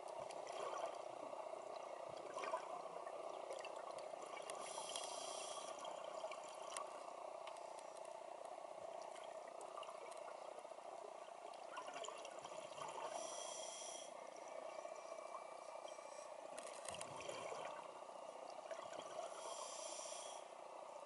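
A scuba diver breathing underwater through a regulator. Three hissing inhalations come several seconds apart, with bubbly exhalations between them, over a steady underwater hiss.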